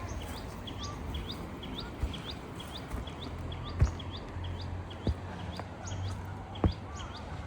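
Small birds chirping over and over in short, quick rising notes, about two or three a second, over a low steady rumble. A few sharp knocks cut through, the loudest about four seconds in and again near the end.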